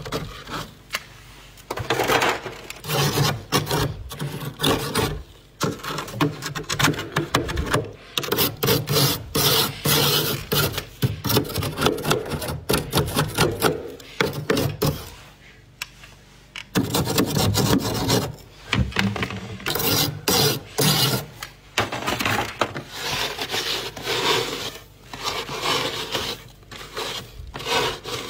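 Thick, soft freezer frost being scraped in quick, repeated crisp strokes, coming in runs with a few short pauses.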